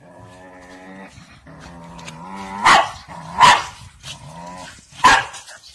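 A dog growling in long, steady rumbles that break into sharp barks: two barks in the middle and one more near the end.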